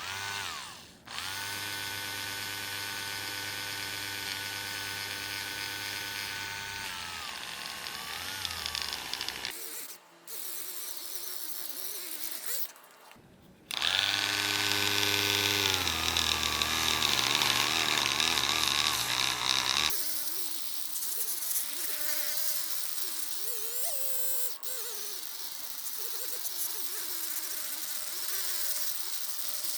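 Small electric polishing tool's motor whining as it polishes a clear plastic part with medium-grade compound. It starts about a second in and its pitch wavers and sags as it is pressed on, then it stops near ten seconds. It starts again around fourteen seconds and runs on with a wavering pitch.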